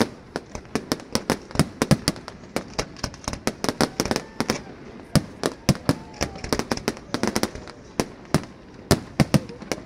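Aerial fireworks going off in quick succession: sharp bangs and crackles from many shells bursting and comets launching, several a second and irregular.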